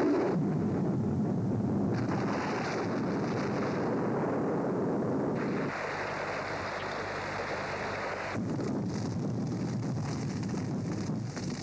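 A steady rushing, rumbling noise. It changes in tone about two seconds in, again about halfway through, and once more about two-thirds of the way through.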